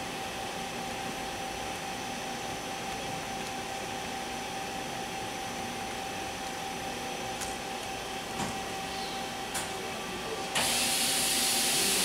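KIWA KNH-426X horizontal machining center running with a steady hum and a constant tone, with a few faint clicks. About ten and a half seconds in, a loud hiss starts and lasts about two seconds.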